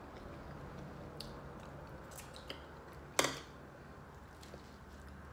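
Quiet chewing and mouth sounds of a person eating, with a few faint clicks and one sharper click about three seconds in.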